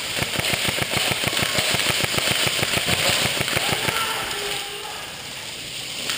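Airsoft rifle gunfire on full auto: a rapid, evenly spaced stream of shots that runs for about four seconds and then stops.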